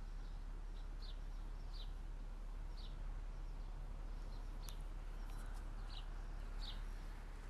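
Short, high chirps repeating a little more than once a second over a steady low hum, with one sharp click a little past the middle.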